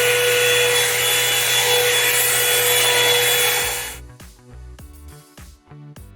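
Revlon One-Step hair dryer brush running: a loud, steady rush of air with a high motor whine. It cuts off suddenly about four seconds in, and music with a beat follows.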